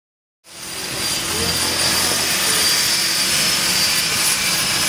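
De Havilland Canada DHC-6-300 Twin Otter's two turboprop engines running, a steady high whine over a broad rush of propeller noise, fading in about half a second in.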